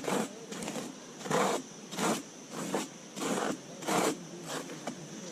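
Sandy soil being dug out by hand with a flat object: a run of about eight short, gritty scraping strokes, roughly one every half second to second.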